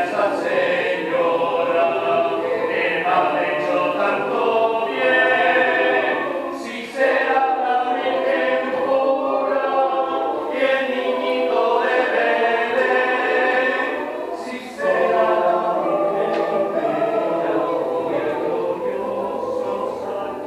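Choir singing a cappella, a Christmas carol sung in long held phrases, with a new phrase coming in strongly about 7 and again about 15 seconds in.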